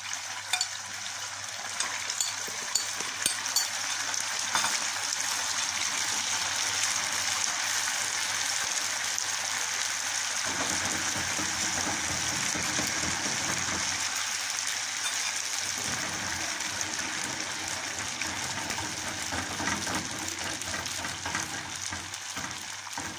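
Parboiled pasta deep-frying in hot oil in a pan: a dense, steady sizzle, with crackles and pops in the first few seconds as the pasta goes in.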